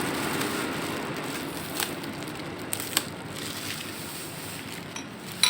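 A few light clicks from handling a metal T-handle socket wrench over a steady rushing noise that slowly fades; the sharpest click comes near the end.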